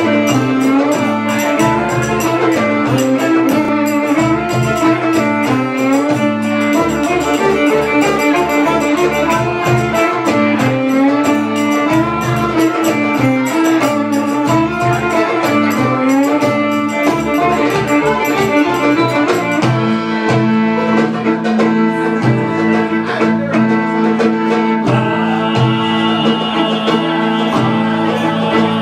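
Live Middle Eastern belly-dance music from a small band: violin over a plucked lute and bass guitar, with hand-drum strokes keeping a steady rhythm. About two-thirds of the way through the drumming stops, leaving sustained bowed and plucked notes, and a higher melody line enters near the end.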